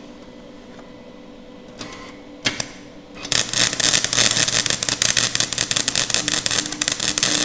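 Flux-core (gasless) MIG welding arc from a Nagano MIG 130 welder. After a brief sputter and a click, the arc strikes about three seconds in and keeps up a dense, rapid popping crackle. The popping comes from the wire speed being set at 7 on the lowest current setting: the wire feeds too fast for the amperage, stubs into the plate and pushes the torch back.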